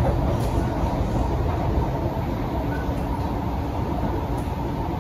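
Kawasaki & CRRC Sifang C151C metro train running between stations, heard inside the passenger car: a steady running noise of wheels on rails and car body.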